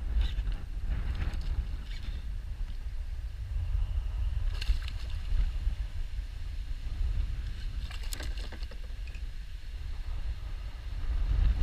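Wind rumbling steadily on the GoPro microphone on a kayak, with a few short knocks or splashes about halfway through and again later.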